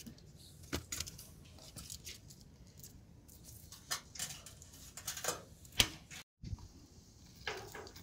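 Dry firewood sticks knocking and clattering as they are handled at a clay bread oven, in irregular sharp clacks with the loudest about six seconds in.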